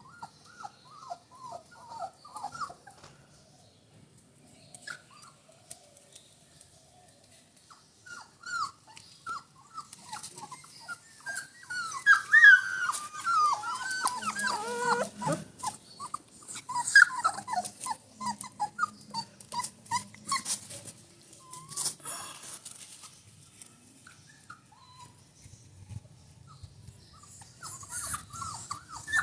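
A litter of Rajapalayam puppies, about three weeks old, whimpering and squeaking in many short high calls, busiest through the middle, with scattered small clicks.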